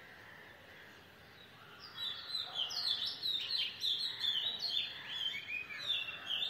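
A bird singing a fast run of short, high chirps that starts about two seconds in, over faint outdoor background noise.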